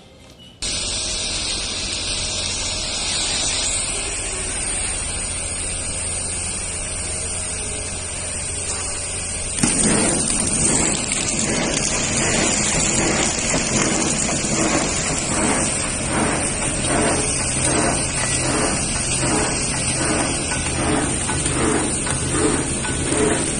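Horizontal flow-wrapping sachet packing machine running, first as a steady, even noise, then, from about ten seconds in, with a regular mechanical beat of roughly two strokes a second as it seals and cuts the packs.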